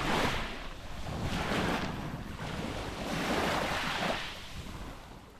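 Small sea waves washing onto the shore, the rush swelling and ebbing about every one and a half seconds, with wind on the microphone, fading out near the end.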